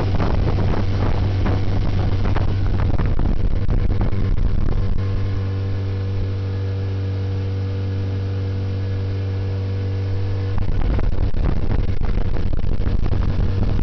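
Honda BF15 four-stroke outboard motor running at a steady speed under way, with a steady low hum under a rush of wind and water. About five seconds in the rush dies down and leaves the engine's even hum on its own. About ten and a half seconds in the rush comes back.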